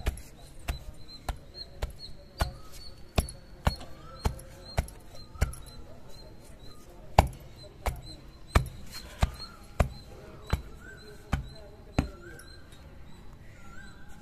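Long wooden pestle pounding pitted dates in a granite stone mortar, a run of dull knocks about two a second with a short pause around six seconds in and the hardest stroke just after it. The dates are being crushed to a smooth paste that will bind into laddu balls.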